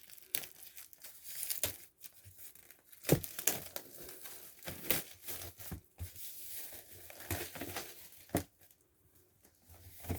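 Packaging on a boxed book set being torn open and crinkled by hand: irregular rips and crackles with short pauses between.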